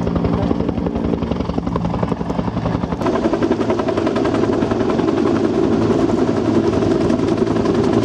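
AH-1S Cobra attack helicopter flying low overhead, its two-blade main rotor beating in a rapid, even rhythm over the turbine. The sound grows louder about three seconds in as it passes closest.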